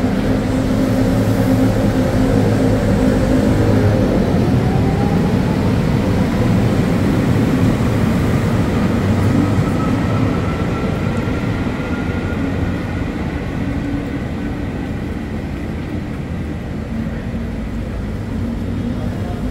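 Electric commuter train at the platform: a steady low hum, then from about four seconds in a rising whine of its traction motors as it pulls away, over the steady noise of the wheels on the rails.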